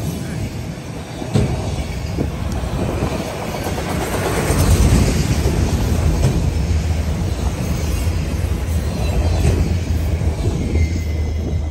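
Norfolk Southern autorack freight cars rolling past, steel wheels rumbling and clattering on the rails with a sharp clank about a second in. The noise falls away at the very end as the last car clears.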